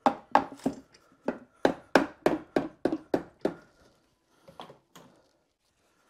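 Repeated taps on a BMW K100's stuck gearbox housing to work it loose from the engine: about a dozen sharp knocks, roughly three a second, then a few softer ones near the end.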